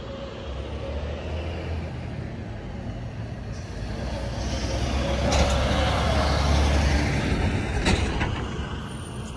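A road vehicle passing: a rumbling noise that swells to a peak a little past the middle and fades away near the end, with two brief knocks during the loudest part.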